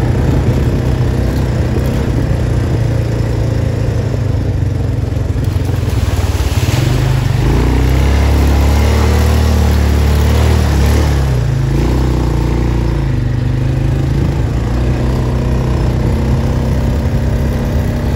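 Off-road vehicle's engine running while being ridden along a rough dirt track, a steady low drone that grows louder and heavier for a few seconds in the middle.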